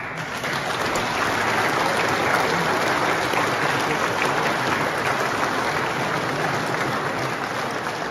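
Audience applauding: dense, steady clapping from a large crowd that builds over the first second and eases slightly toward the end.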